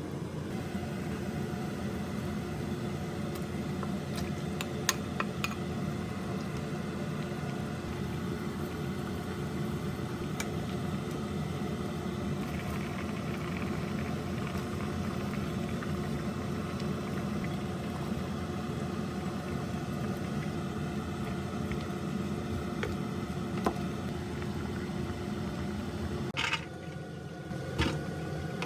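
Steady hum of a running kitchen appliance with a few light clicks, cutting off abruptly near the end.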